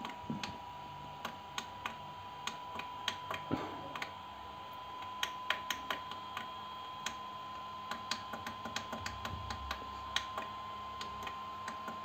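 Tactile push buttons on an Anet A8 3D printer's LCD keypad pressed again and again, giving irregular sharp clicks, while the buttons are faulty and mostly fail to respond. A steady faint tone runs underneath.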